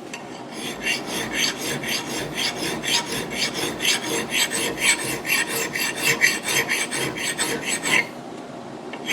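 A vintage Simmons hand file rasping along the steel edge of an axe head to sharpen it, in quick, even back-and-forth strokes, about four a second, stopping about a second before the end.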